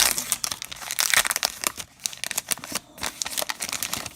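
Baseball card pack wrapper crinkling and tearing as it is ripped open and handled, dying away near the end.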